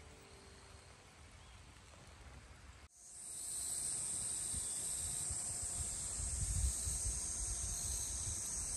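Faint outdoor hiss for about three seconds. Then, after an abrupt cut, a steady high-pitched chorus of insects sets in, with wind buffeting the microphone in low, irregular gusts.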